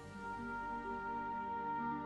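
Background music: a slow melody of held notes over a sustained low bed.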